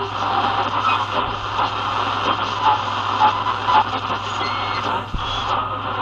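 AM-band static hissing from a Sony ICF-7601 portable radio's speaker as the dial is tuned between stations, with a low hum underneath and brief whistling tones here and there.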